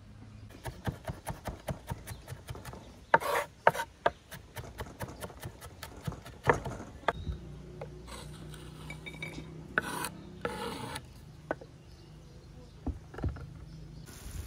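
Kitchen knife on a wooden cutting board: a run of quick chopping taps, about four a second, then several louder scrapes of the blade across the wood.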